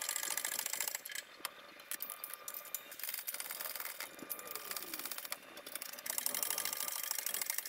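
Rapid, even mechanical clicking and rattling from a shop press being worked to press new gears and bearings onto a Subaru 5-speed manual transmission shaft. It eases off for stretches and picks up again near the end.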